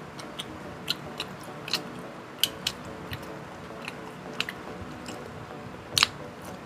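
Close-up eating sounds: chewing and biting, with irregular crisp clicks, the sharpest about six seconds in.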